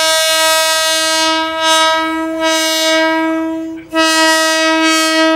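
Diesel railcar's horn sounding a long steady warning blast as the train approaches. It cuts off for an instant about four seconds in, then sounds again.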